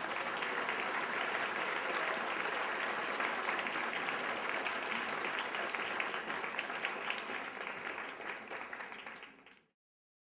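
Audience applauding, dense and steady, then cut off abruptly near the end.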